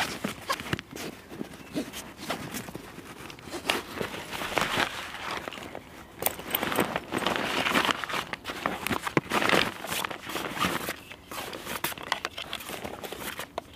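Canvas rucksack and a nylon dry bag being handled: fabric rustling and crinkling in uneven swells, with many short clicks and knocks.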